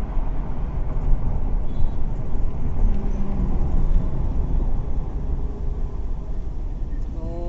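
Mahindra Bolero Power+ ZLX's diesel engine running, a steady dense low rumble.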